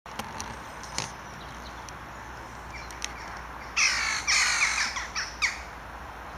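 A crow cawing: a quick run of about four harsh caws about four seconds in.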